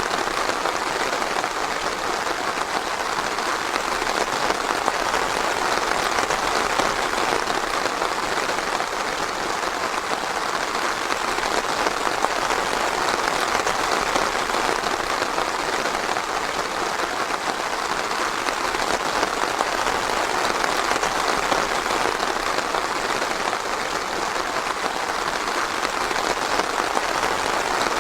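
Steady heavy rain falling, a dense, even patter that holds at one level throughout.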